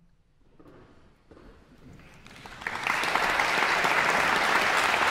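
Concert audience applauding: about a second of near silence, then a few scattered claps that swell into full, steady applause about three seconds in.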